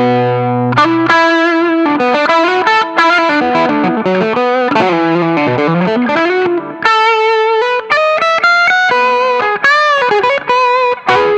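Electric guitar played through an Ibanez TS-808 Tube Screamer overdrive, giving a mid-gain drive. A held chord rings at first, then the playing moves through changing notes into single-note lead lines, with one note shaken with vibrato near the end.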